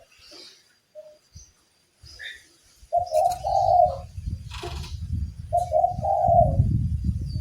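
A dove cooing: two low, even coos about a second long each, a few seconds in and again past the middle. A sharp click comes between them, and low rumbling noise runs under the second half.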